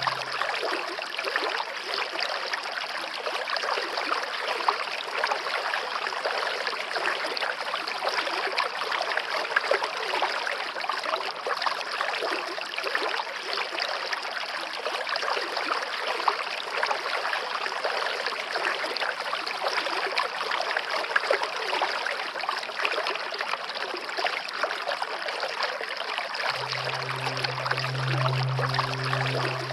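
Running water of a flowing stream, a steady dense splashing hiss with no pauses. Near the end a low held music chord comes in over it.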